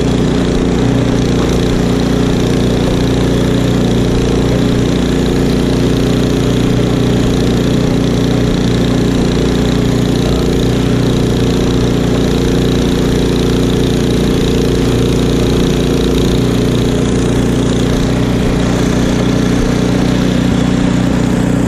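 Craftsman two-stage snowblower's single-cylinder engine running steadily while the machine clears deep snow, the auger and impeller throwing snow out of the chute.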